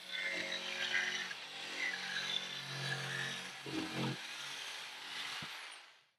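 Electric saws cutting plywood: a band saw, then a jigsaw, running steadily through the cuts and fading out near the end.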